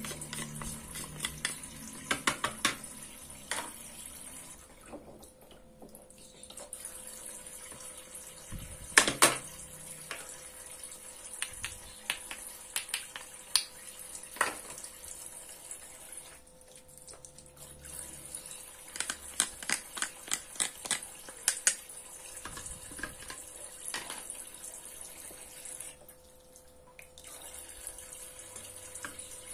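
Water trickling steadily from a toy kitchen sink's faucet, briefly stopping twice, with a faint steady hum under it. Plastic toy food and utensils click and clack as they are handled, the loudest a sharp double clack a little after nine seconds.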